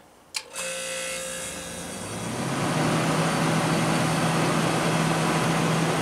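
Click of the humidistat knob, then a Hampton Bay (Whirlpool-built) 25-pint dehumidifier starting up: its reciprocating compressor and fan come on about half a second in. The sound builds over the next two seconds and settles into a steady hum, described as the classic reciprocating compressor sound.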